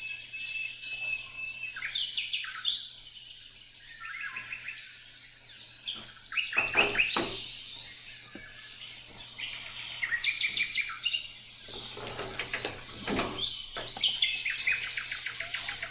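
Birdsong: a busy run of short chirps, rapid trills and downward-sweeping whistles, over a faint steady low hum.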